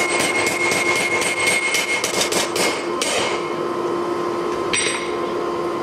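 Hand hammer striking steel stock held on an anvil in a quick, even rhythm of about three blows a second, stopping about three seconds in, with one more knock near the end. A chain draped over the anvil deadens its ring.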